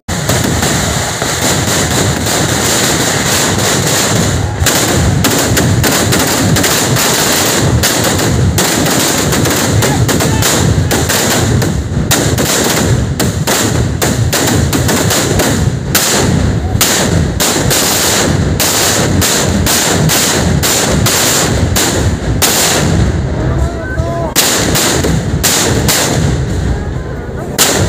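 Temple fireworks display: a dense, near-continuous barrage of firecracker and aerial-shell bangs and crackles, with sharp reports running into one another, thinning slightly near the end.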